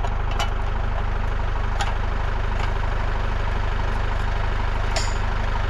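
Tractor engine idling steadily, with a few light clicks and taps over it.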